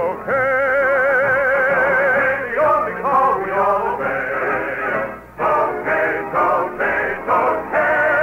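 A male operetta singer with orchestra, singing in long phrases with wide vibrato, broken by short breaths, then holding a long note near the end. The old radio recording cuts off the high end, so it sounds narrow and dull.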